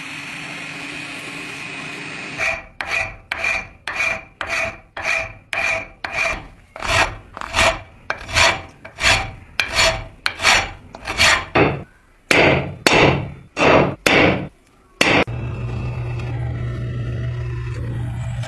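Hand file rasping across a steel leaf-spring blank in about twenty even strokes, roughly two a second, with a faint ring from the steel on each stroke. Near the end the filing stops and a steady low machine hum takes over.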